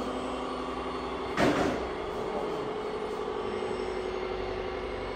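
Radio-controlled model truck running with a steady mechanical hum made of a few held tones, cut by one brief, louder noisy burst about a second and a half in.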